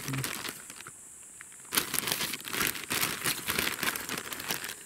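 Thin plastic carrier bag crinkling and rustling as a hand rummages through freshly picked honey mushrooms inside it. A short burst at the start, a lull of under a second, then close, busy crackling until near the end.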